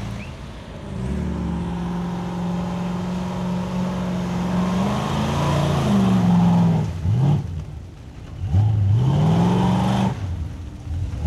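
Lifted mud-bogging pickup truck's engine under load in deep mud. It holds steady revs for a few seconds, then revs up and drops back twice, and falls away about ten seconds in.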